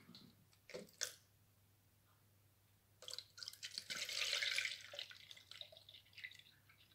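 Milk poured from a plastic bottle into a plastic measuring jug, a trickling pour starting about three seconds in and lasting about three seconds. Two light clicks come near the first second.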